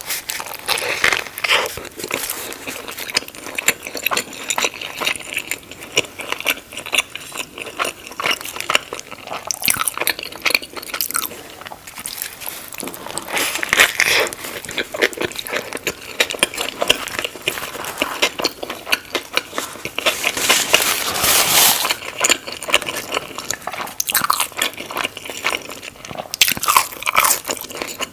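A person biting into and chewing a burger with lettuce, pickles and onions, with many crisp crunches and wet chewing clicks throughout.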